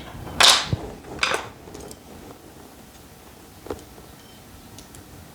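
Two short scraping clatters about a second apart, then a single light click: tools and parts being handled on a workbench.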